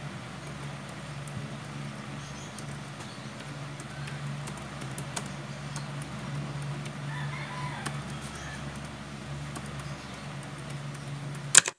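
Typing on a computer keyboard: soft, scattered key clicks over a steady low hum, with a faint animal call in the background about seven seconds in. A single sharp, loud click comes near the end.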